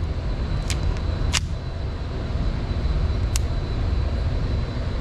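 Steady low rumble of an indoor shooting range's air handling, with three sharp clicks, two about a second in and one near the middle, as a Kel-Tec CP33 pistol is handled before firing.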